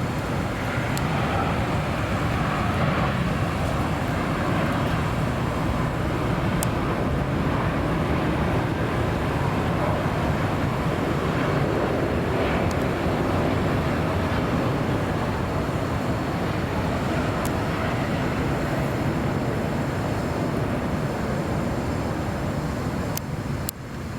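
Steady roar of a jet airliner near LAX, swelling a little through the middle and dipping briefly near the end.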